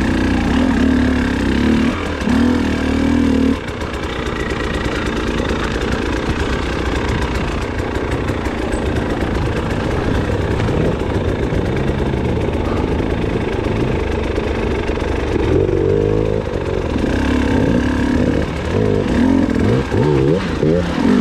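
Motorcycle engine running and being revved up and down as it is ridden, its pitch rising and falling throughout.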